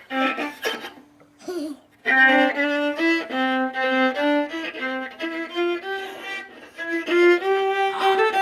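Viola bowed in a simple tune of short, even notes stepping up and down. A few scattered notes come first, then the run of notes starts about two seconds in.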